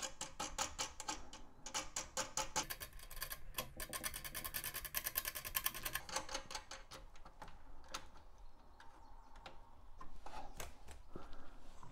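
Ratchet clicking as a nut is run onto a grille button bolt. The clicks come about five a second, quicken to about ten a second for a few seconds, then thin out to scattered single clicks.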